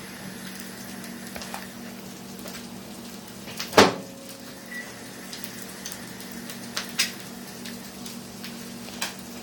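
A steady low hum with one sharp click or knock about four seconds in and a few fainter clicks later.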